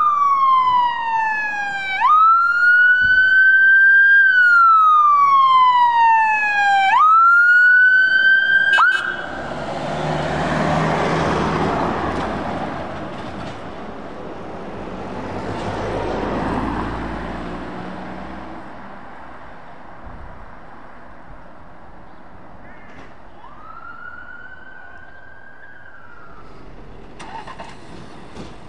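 Emergency vehicle siren on a slow wail that sweeps down and back up, then cuts off suddenly about nine seconds in. The sound of passing traffic follows, swelling and fading twice. A faint, short siren tone sounds near the end.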